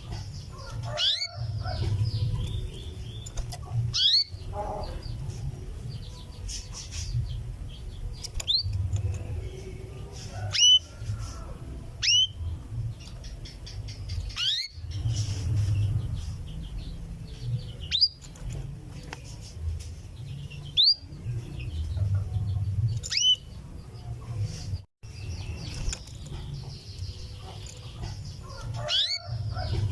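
Female canary giving short, rising 'cuwit' calls to attract a male, about one every two to three seconds, over a steady low rumble.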